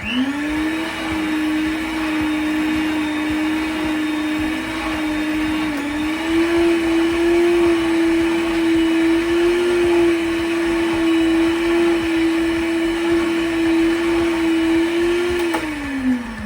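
Electric kitchen mixer beating cookie dough, a steady motor whine that spins up at the start, steps up slightly in pitch about six seconds in, and winds down near the end.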